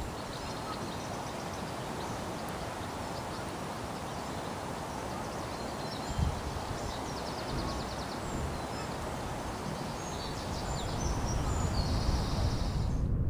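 Steady outdoor noise like wind, with faint chirps and twitters of small birds scattered through it and one soft thump about six seconds in.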